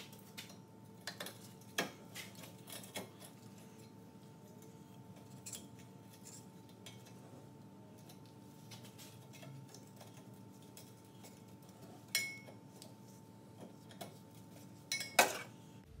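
Light metallic clinks and taps of a replacement exhaust flex pipe and its hardware being fitted up under a car. The louder clanks come about two seconds in, about twelve seconds in and just before the end, over a faint steady hum.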